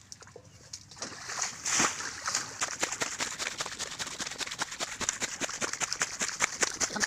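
Muddy water sloshing and splashing as it is bailed out of a ditch pit with a metal bowl, starting about a second in as a dense, quick run of splashes that carries on.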